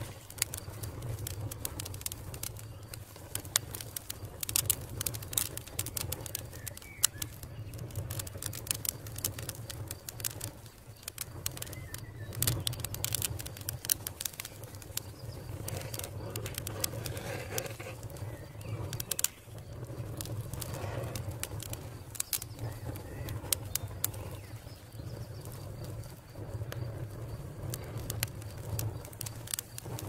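Wood fire crackling, with many sharp irregular pops and snaps over a low steady rumble.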